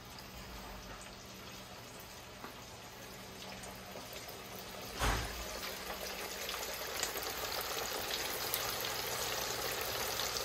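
Floured pieces of Banga Mary fish deep-frying in hot oil in a copper pot: a steady sizzle of bubbling oil, with a sudden loud burst about five seconds in, after which the sizzling is louder.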